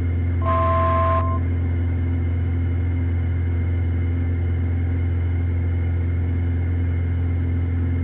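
Steady drone of the Piper PA-46 Malibu's piston engine and propeller in climb, heard in the cockpit through the headset intercom. About half a second in, a brief two-note electronic tone sounds together for about a second.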